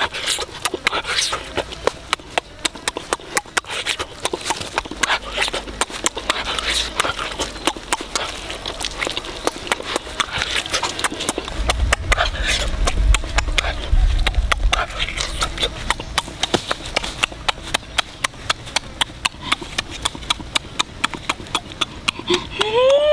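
Close-up mukbang eating sounds: a person chewing and lip-smacking on cooked pig's leg, a fast run of wet smacks, several a second. A low rumble comes in for a few seconds midway, and a short rising-then-falling vocal hum begins just before the end.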